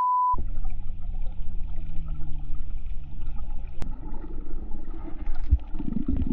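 Muffled underwater sound picked up by a submerged camera: a low rumble with a faint hum whose pitch slowly falls, a sharp click a little under four seconds in, then gurgling bubbles. A short beep sounds right at the start.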